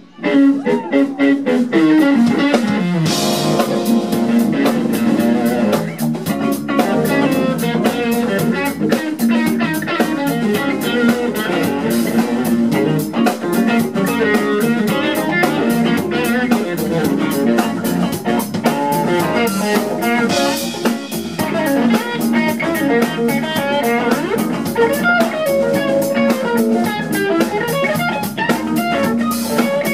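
Live instrumental funk band playing: electric guitars over a drum kit, bass, keyboards and hand percussion, with a steady, busy drum beat. The full band comes back in at the very start after a momentary break.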